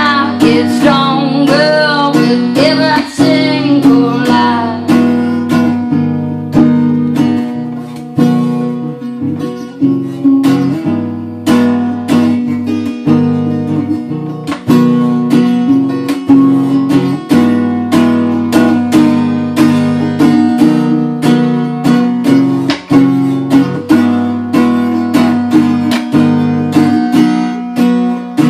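Acoustic guitar strummed in a steady rhythm, with a woman singing over the first few seconds; after that the guitar carries on alone.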